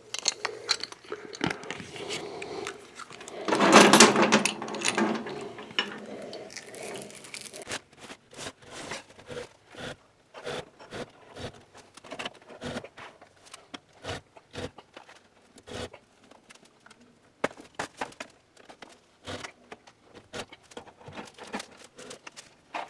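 Metal chain and hook rattling as a deer hoist's hook is clipped onto the chain harness of a hanging unit heater, with a loud clatter about four seconds in. This is followed by a string of short, irregular clicks and knocks as the rope pulley hoist hauls the heater up.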